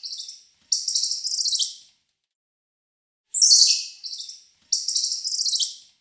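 High-pitched chirping call: a phrase of quick descending chirps running into trills, ending about two seconds in, then the identical phrase again from about three seconds in.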